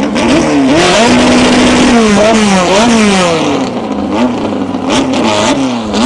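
Drag-racing Volkswagen Beetle's engine revving on the start line. It is blipped up and down again and again, held at a steady pitch for about a second near the start.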